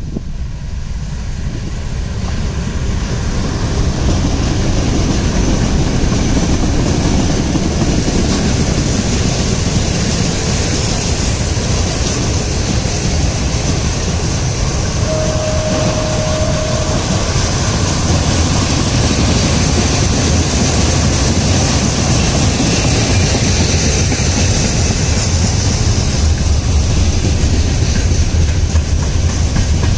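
Three diesel freight locomotives drawing near and passing, growing louder over the first few seconds. A long loaded freight train of tank-container flats and hopper wagons then rolls past with a steady low rumble. A brief steady high tone sounds about halfway through.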